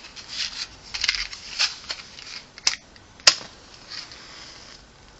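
Handling noise as a new wick is set on an aluminum can stove: short bursts of rustling and scraping, with two sharp clicks a little over half a second apart midway through, the second the loudest.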